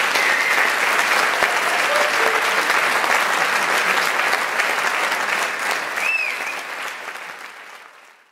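Concert audience applauding, dense clapping that fades away over the last two seconds.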